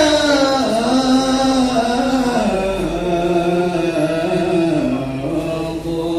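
A single voice singing Arabic devotional verse in a long, held melismatic line, with slow ornaments on each sustained note and the pitch stepping lower about five seconds in.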